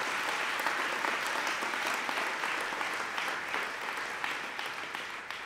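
Audience applauding in a large conference hall, a dense even clapping that starts to die away near the end.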